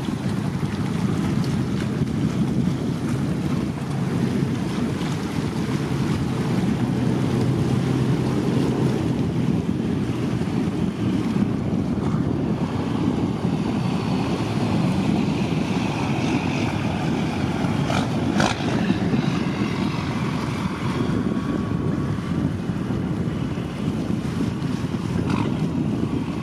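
Steady rumble of wind buffeting the microphone, over water washing against shoreline rocks. A single sharp click comes about two-thirds of the way through.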